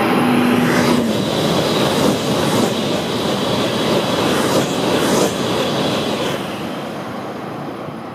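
Shinkansen high-speed train passing close by at speed: a loud rush of wheels on rail and air, with brief swishes as the cars go past. It fades away over the last couple of seconds.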